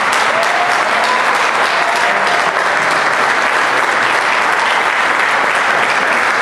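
Audience applauding steadily: dense, even clapping from a room full of seated people.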